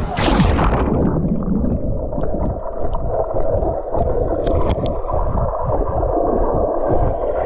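A splash as a swimmer plunges into a swimming pool, then the muffled rush and gurgle of water heard underwater while he swims. The sound is dull and muffled, as heard from inside a submerged camera housing.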